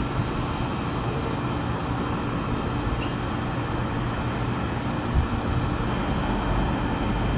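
Wind blowing across the microphone with road traffic beneath it: a steady low rumble and hiss that grows slightly louder near the end.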